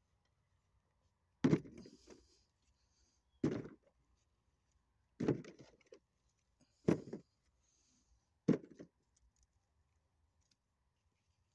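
Fallen apples being picked up from a heap and dropped, five dull thuds spaced about a second and a half to two seconds apart, with a brief rustle of leaves and wood chips around some of them.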